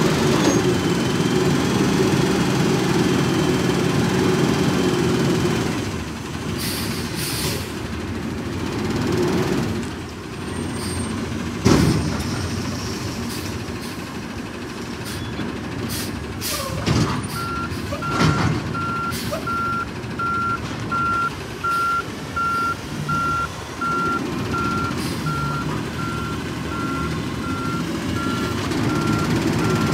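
Autocar ACX natural-gas Heil front loader garbage truck: the engine runs raised to drive the hydraulics as the arms work, with a loud bang about twelve seconds in and more clanks a few seconds later. Its backup alarm then beeps steadily about once a second, and the engine rises again near the end as the arms come down.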